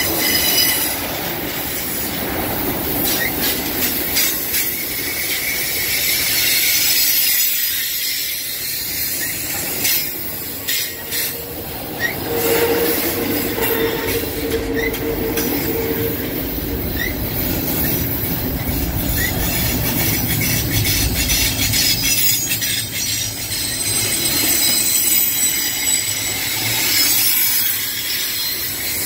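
Double-stack container well cars of a freight train rolling past at close range, wheels rumbling on the rails with scattered clicks over joints and a high-pitched squeal. A lower squealing tone rises out of it for a few seconds about halfway through.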